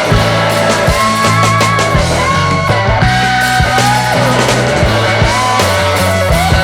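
Rock music with loud guitars and a steady beat.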